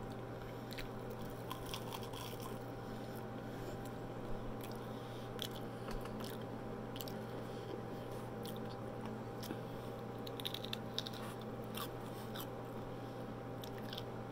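Close-up chewing of a battered fried onion ring: scattered crisp crunches and mouth clicks, over a steady low hum.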